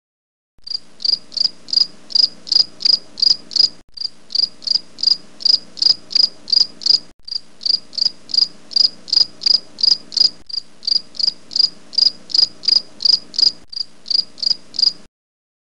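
Insect chirping like a cricket: loud, regular, short high chirps at about four a second over a faint low drone. It starts and stops abruptly and breaks off briefly every few seconds.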